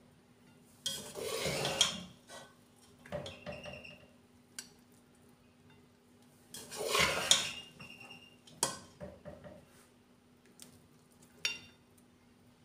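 A spatula scraping and tapping on a glass plate as rice is served onto it. There are two longer scrapes, about a second in and around seven seconds in, with a few short clicks between and after.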